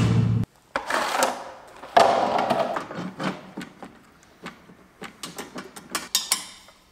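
Clanks and knocks of a steel chainsaw jig and a chainsaw being handled and fitted into it, with several separate knocks in the first half and a quick run of small clicks and rattles near the end. The chainsaw is not running.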